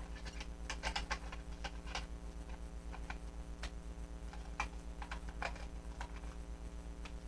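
Hard plastic toy parts clicking and knocking as they are handled and tried in place: a scatter of light, irregular clicks over a steady low hum.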